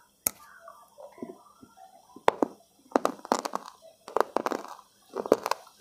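A sharp snap as a bite is taken from a hard, brittle bar, then crunchy chewing in repeated bursts about once a second, close to the microphone.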